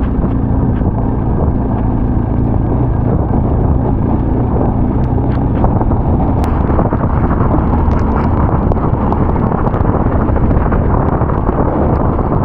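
Adventure motorcycle engine running steadily while riding, with wind rushing over the microphone.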